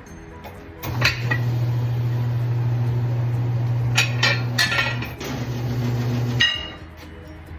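A steady low motor hum runs for about five and a half seconds, dipping briefly near the five-second mark, with sharp metallic clinks and taps over it; faint background music underneath.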